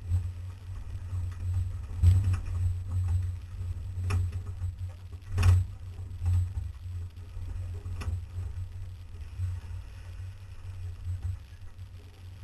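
Off-road vehicle crawling over a rocky trail: a steady low rumble from the vehicle, broken by sharp knocks and jolts as the wheels go over rocks, the loudest about two and five and a half seconds in.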